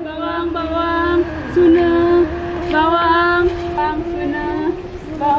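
Background music: a woman's voice singing a melody over a steady, held drone.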